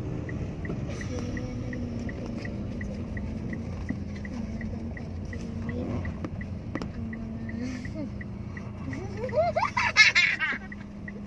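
Steady engine and road drone inside a moving car's cabin, with a light, even ticking about three to four times a second. Near the end a loud rising, wavering voice-like cry rises above everything else.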